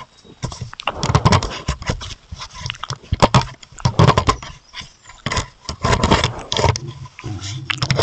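Roosevelt elk rubbing its head and neck against a Meidase trail camera: fur scraping and brushing over the housing right at the microphone, with irregular knocks and bumps.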